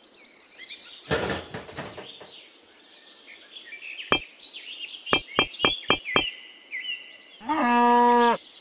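Birds chirping, with about six light, sharp knocks of small pieces being set down around a miniature hand pump. Near the end comes a loud, steady animal call lasting about a second.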